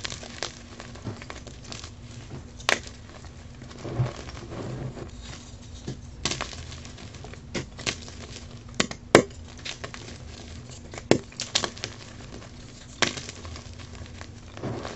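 Blocks of dyed gym chalk crushed and crumbled between fingers: irregular sharp crunches and snaps, several seconds apart, over a soft gritty rustle of powder.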